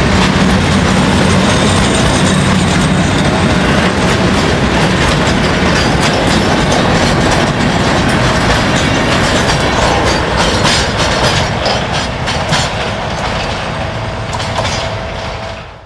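Freight cars of a passing train (covered hoppers, then boxcars) rolling close by, their wheels clacking over the rail joints. The sound fades near the end as the last car moves away.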